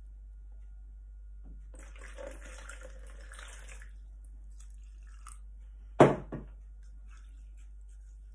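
Rice-washing water swishing and splashing as it is poured out of a ceramic pot into a plastic bowl for about two seconds. About six seconds in comes a sharp knock, loudest of all, followed at once by a lighter one.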